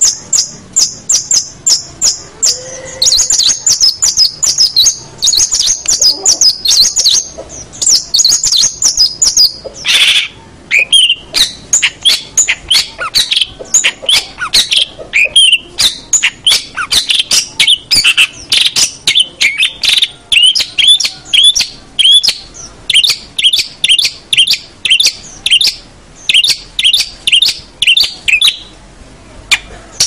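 Long-tailed shrike (cendet) singing: a fast, continuous chatter of short, sharp high notes, several a second. The notes are quick and evenly repeated at first, then turn more varied and somewhat lower from about ten seconds in.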